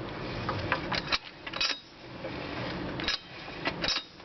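Irregular metallic clicks and clinks, about a dozen short knocks spread unevenly, some in quick pairs, over a low background hum.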